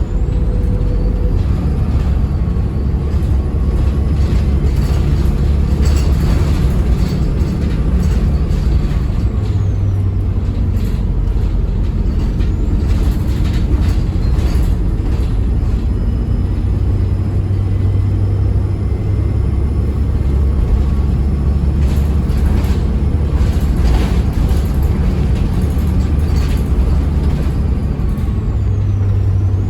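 Diesel bus engine running under way, heard from on board, its drone shifting several times as the automatic gearbox changes gear. A faint high turbocharger whistle rises and falls over it, with occasional rattles and knocks from the bodywork.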